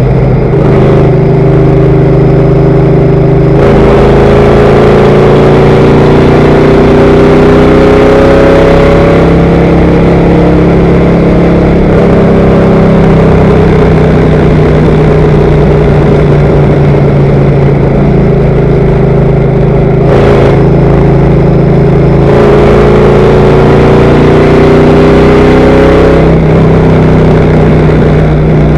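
Race car's engine running hard at speed on a lap of an oval, recorded on board and very loud. Its pitch slowly climbs and drops back a few times.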